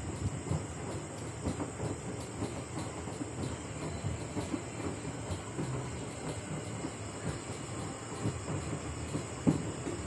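LG Direct Drive 7 kg front-load washing machine on its wash cycle, the drum tumbling the wet load: a steady churning with irregular soft thumps and one louder knock near the end.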